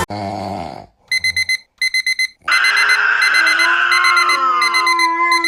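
Electronic alarm beeping in quick groups of about four short high beeps, starting about a second in and repeating. From about halfway through, a longer, louder sound joins it, sliding slowly down in pitch.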